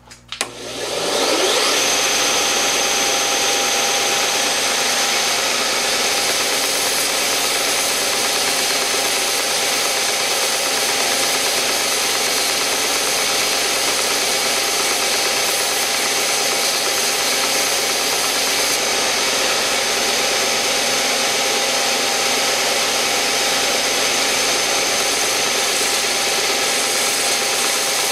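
Rikon benchtop belt sander switched on, its motor whining up to speed over the first second or two, then running steadily while a padauk marimba bar is sanded against the belt to tune it.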